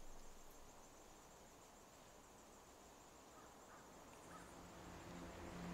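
Near silence: faint outdoor ambience with a thin steady high note, and quiet background music fading in about four seconds in.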